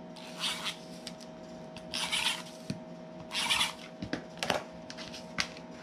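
Tape runner drawn across a paper card in three short rasping strokes of about half a second each, with a few light clicks and taps in between.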